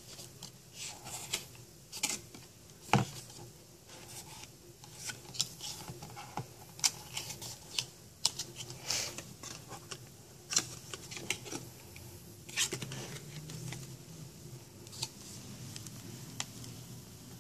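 Stiff cardboard pages and flaps of a lift-the-flap board book being handled: flaps lifted and folded back, giving an irregular string of dry clicks, taps and rustles, with one louder knock about three seconds in.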